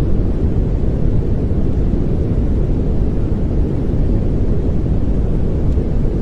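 Steady synthetic pink noise: an even, deep rushing hiss with most of its weight in the low end, unchanging throughout.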